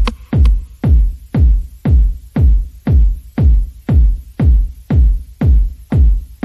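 Electronic intro music driven by a deep kick drum beating about twice a second, each hit dropping in pitch, with lighter percussion between the beats.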